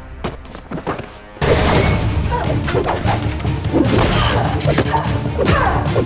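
TV fight-scene soundtrack: a dramatic action music score with repeated punches, kicks and body impacts. The soundtrack jumps abruptly from quiet to loud about a second and a half in.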